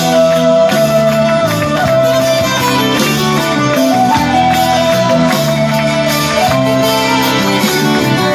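Instrumental passage of a song, with no singing: a held melody line over steady accompaniment.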